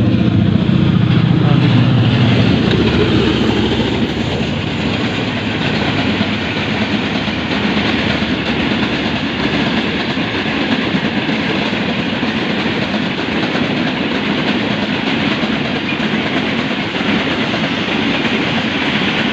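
A train passing close by. In the first few seconds there is a loud low drone as the locomotive goes by. After that comes a steady rushing clatter of wheels over the rail joints as the wagons pass.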